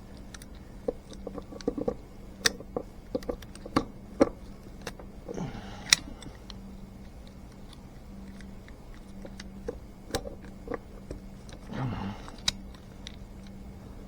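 Scattered light clicks and metal taps of small engine parts being handled, over a steady low hum; a short muffled vocal sound comes twice, near the middle and near the end.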